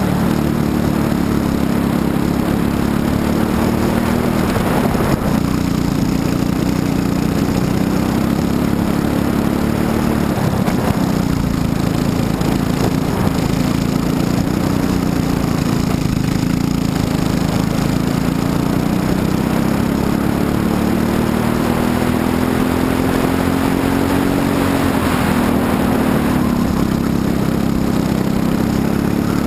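Briggs & Stratton LO206 single-cylinder four-stroke kart engine running at racing speed, heard from on board the kart. Its pitch drops and climbs again several times as the kart slows for corners and accelerates back out.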